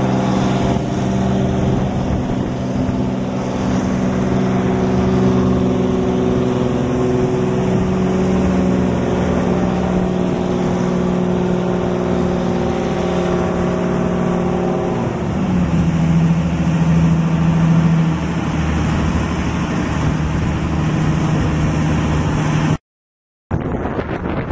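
Diesel engine of a harbour tug running steadily, its pitch dropping about two-thirds of the way through as the engine slows. Near the end the sound cuts off and is replaced by wind buffeting the microphone.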